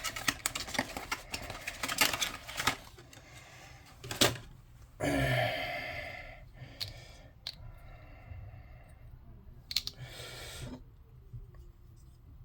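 Plastic mount parts and packaging being handled: a quick run of small clicks and rattles, a sharp snap about four seconds in, then rustling with a few more clicks.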